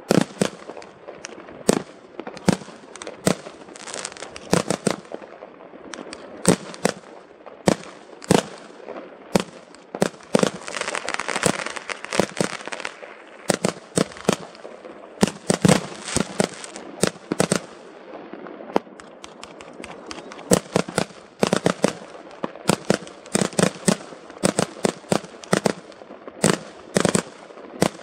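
Fireworks display: aerial shells bursting in a continuous run of sharp bangs at irregular intervals, often several in quick succession. A denser crackling stretch comes about halfway through.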